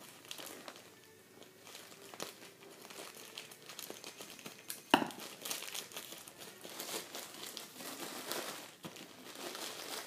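Plastic packaging crinkling and rustling as a package is cut open with scissors and the bag inside is handled, with one sharp click about five seconds in.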